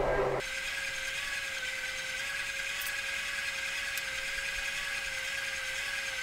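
Steady whirring hum with a thin, slightly wavering whine: the air blower of a coal forge running to keep the fire up to heat.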